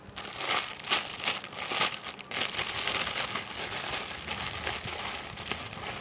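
Clear plastic bag crinkling irregularly as a squishy toy inside it is handled.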